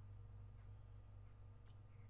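Near silence: room tone with a low steady hum, and one faint click near the end.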